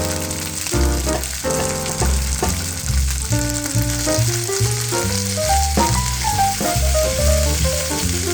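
Background music with a bass line and a moving melody, over the steady sizzle of food frying in oil in a pan.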